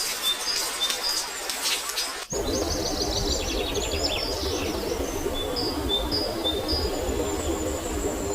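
Forest birds chirping, with repeated short whistled notes and a fast trill. About two seconds in the recording cuts abruptly to a denser bed of steady rain under the birds, and a long thin high note sounds near the end.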